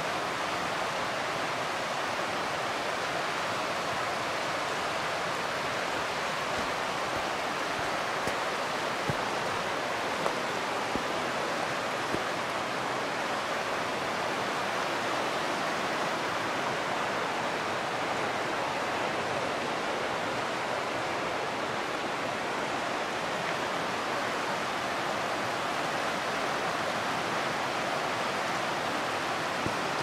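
Middle Fork Snoqualmie River rushing over its rocky bed: a steady, even roar of fast water. A few faint clicks come through about ten seconds in.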